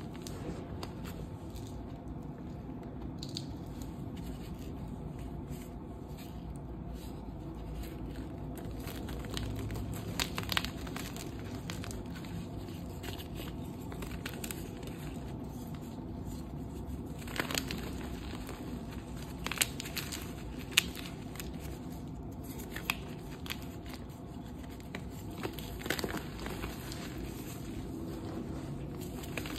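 Hands crushing and crumbling dyed gym chalk blocks and reformed chalk chunks into powder: a steady dry crunching and crackling, with a handful of sharper snaps as pieces break, the loudest about two-thirds of the way through.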